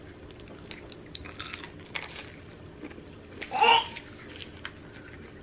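Close-up chewing and biting of a chicken sandwich: small soft crunches and mouth clicks. About three and a half seconds in, a brief high-pitched toddler's babble stands out as the loudest sound.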